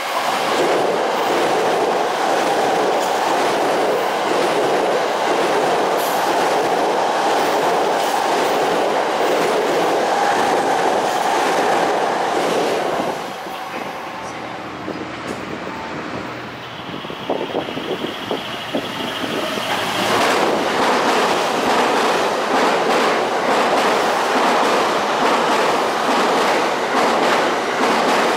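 JR East E353 series electric limited express passing through a station at speed: loud, steady running noise of steel wheels on the rails. It eases for a few seconds around the middle and then builds back up as more cars go by.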